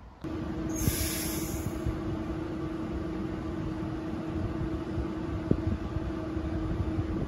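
TransPennine Express train close by, its equipment giving a steady hum with one clear tone, and a short hiss of air about a second in.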